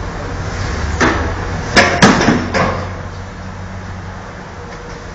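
Four sharp knocks in quick succession, between about one and three seconds in, over a steady low hum.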